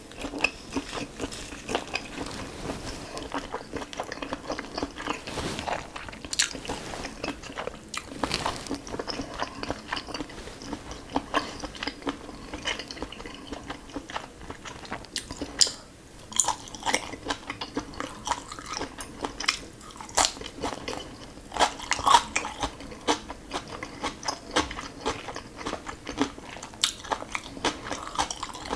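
Close-miked eating: biting and chewing food, with a steady stream of short, sharp, wet clicks from the mouth and a few louder bites.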